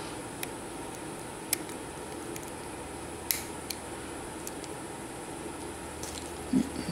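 A few faint, sharp metallic clicks as a small flathead screwdriver works a wrist-pin C-clip into its groove in a Yamaha Banshee piston, the strongest about three seconds in, over a steady background hum.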